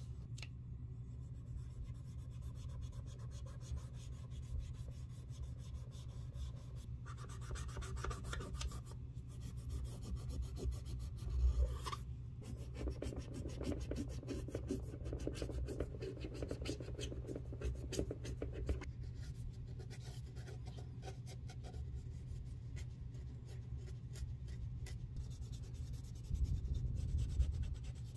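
Cotton pad held in tweezers scrubbing stain remover over the rubber sole and leather of a white Gucci Ace sneaker: a dry, scratchy rubbing made of many quick strokes. A steady low hum lies underneath.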